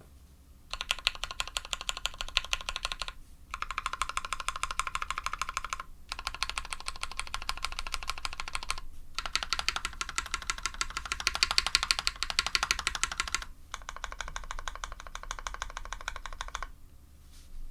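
Fast typing on an F1-8X custom mechanical keyboard with SP-Star White switches, an aluminium sandwich plate and GMK keycaps: dense runs of keystroke clicks broken by short pauses about four times.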